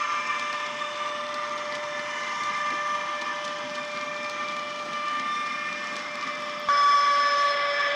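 Digital sound-decoder recording of a BR 185 electric locomotive played through a model's small speaker: a steady electric whine made of several held pitches, with a faint hiss underneath. Near the end it jumps suddenly louder and the pitches shift slightly.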